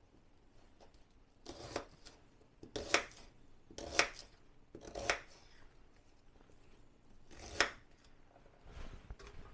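Kitchen knife roughly chopping an onion on a wooden chopping board: five sharp cuts about a second apart, each blade stroke ending in a knock on the board, with a pause before the last, and a few lighter taps near the end.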